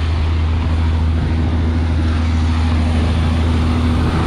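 Motorcycle engine running steadily while riding, a constant low drone with no change in speed.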